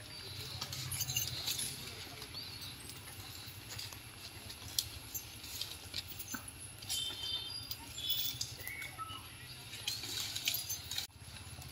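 Asian elephant walking over dry leaf litter and fallen twigs: irregular crackling and rustling underfoot, with light clinks from the chains on its legs.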